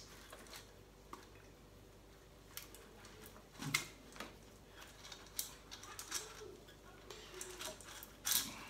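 A latex-gloved hand working inside a glass terrarium bowl among small stones and potted cacti: faint, scattered clicks and rustles, with brief louder scrapes about a third of the way in and near the end.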